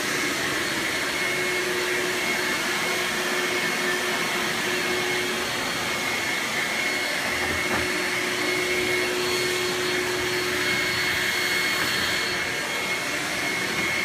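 Upright vacuum cleaner running steadily: a constant rushing hiss with a steady whine in it.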